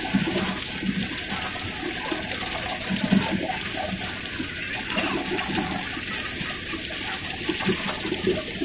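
Belt-driven rag-shredding machine running steadily as old cloth is fed into it, a constant rushing noise with uneven low rumbles from the beater and belt.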